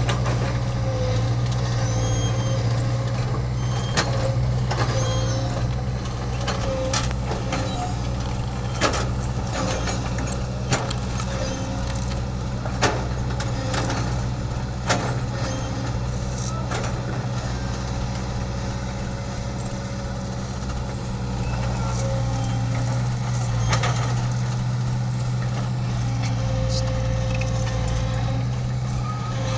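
Heavy equipment's diesel engine running steadily with a low, even drone, with a few sharp knocks scattered through the first half.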